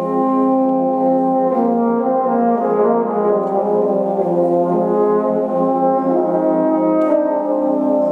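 Brass band of cornets, horns, euphoniums, tubas and trombones playing held chords, moving to a new chord about one and a half seconds in.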